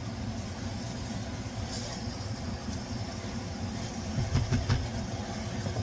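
A spatula stirring and scraping vegetables in a simmering stir-fry pan over a steady low hum, with a louder clatter of spatula against the pan about four and a half seconds in.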